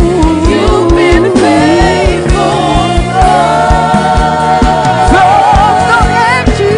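Gospel worship music: voices singing over a band with a steady drum beat and bass, one voice holding a long note in the middle.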